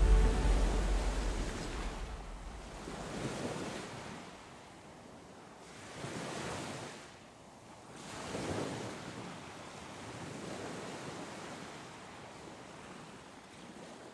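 Ocean waves breaking and washing in, in slow swells every two to three seconds, fading away toward the end.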